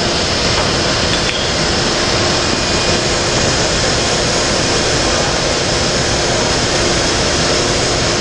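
Powered tile saw running: a loud, steady machine noise with a faint constant hum through it.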